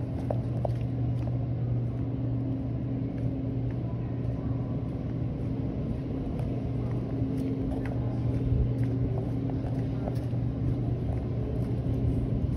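Steady low machine hum, one even drone with a fainter overtone above it, with a few faint clicks and taps over it.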